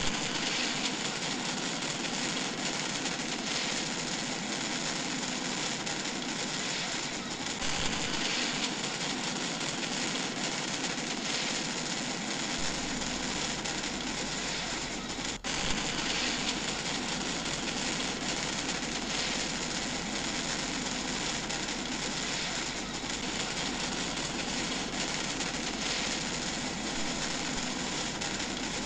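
Steady roar of a fast-flowing, flood-swollen river, briefly broken off about halfway through.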